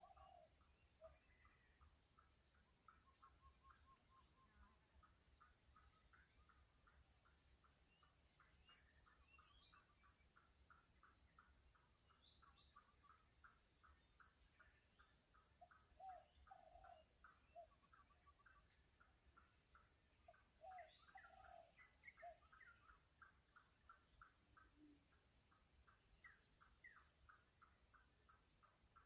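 Faint insect chorus: a steady high-pitched drone with a rapid, regular chirping of about four pulses a second, and a few short calls from another animal in the middle.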